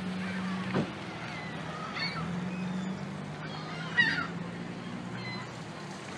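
Gulls calling: a few short, pitch-bending calls about a second in, at two seconds and, loudest, at four seconds, over a steady low hum.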